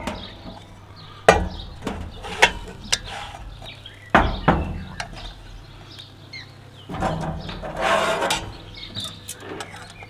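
Metal clanks and knocks as the lid of a spun steel camp oven, heaped with hot heat beads, is lifted off with a lid lifter and set down, several sharp strikes in the first half. Then a wooden spoon and tongs scrape and stir vegetables in the pot.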